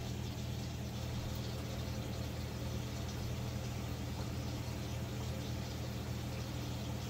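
Steady low hum of a running reef aquarium system's pumps, over an even hiss.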